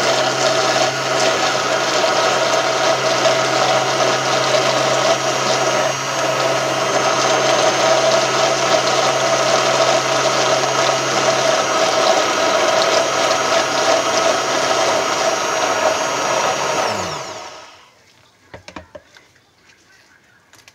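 Stick blender running steadily in a plastic jug of soap mixture. About three-quarters of the way through it is switched off and its motor pitch falls as it winds down, followed by a few faint knocks.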